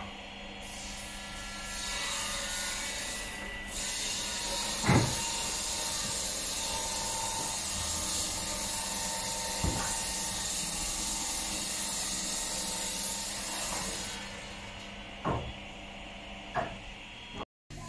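Construction site noise: a steady hiss with a few sharp knocks, the loudest about five seconds in.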